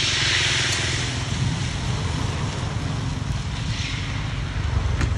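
Yellow pancake batter sizzling as it is ladled into a hot oiled wok, loudest in the first second and then dying down, with a smaller flare of sizzling about four seconds in. Under it runs a steady low rumble.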